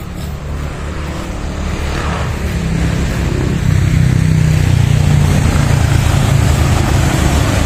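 Road traffic: motorcycles and other motor vehicles passing on the adjacent road, engine hum and tyre noise growing louder over the first few seconds and then holding steady.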